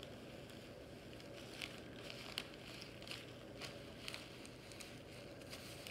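Faint crackling and soft scattered ticks of transfer tape being slowly peeled back from a stencil on a coir doormat.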